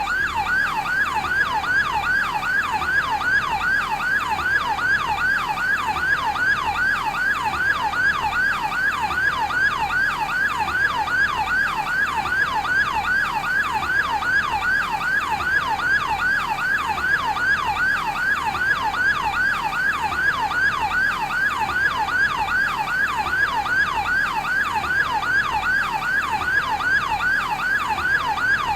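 Electronic siren of a fire department advanced life support ambulance in yelp mode: a fast, even run of pitch sweeps repeating several times a second, unbroken.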